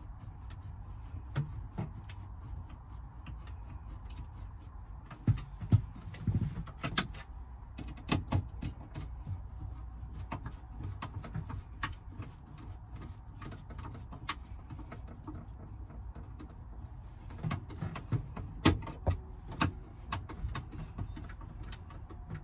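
Hand screwdriver turning T25 Torx screws into the plastic dashboard trim: scattered small clicks and knocks, with a busier run about a quarter of the way in and another past three-quarters, over a steady low hum.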